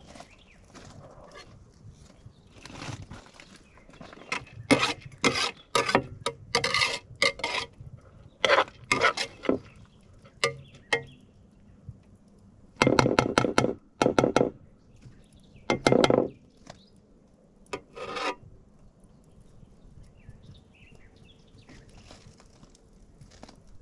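Irregular scraping strokes: a quick run of them about five seconds in, then a few louder, longer scrapes between about thirteen and eighteen seconds in.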